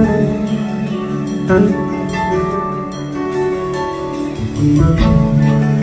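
Live soft-rock band playing an instrumental passage: electric guitar over drums and sustained chords, with a new chord about a second and a half in and again near the end.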